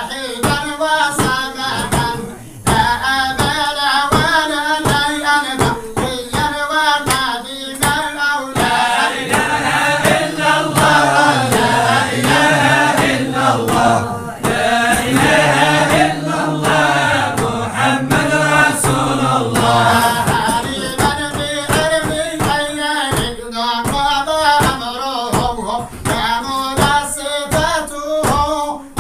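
A group of voices singing a chant together over a steady rhythmic beat. In the middle the beat drops back and the voices hold long, drawn-out notes, then the beat returns.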